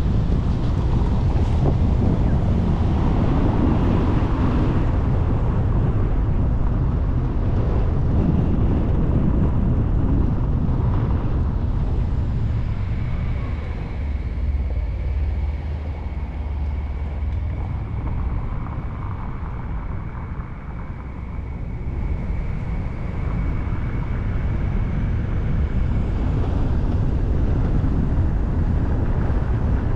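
Car driving slowly on a brick-paved street: steady low tyre and road rumble with wind buffeting the microphone. It eases off briefly about twenty seconds in, and a faint steady high tone runs through the middle stretch.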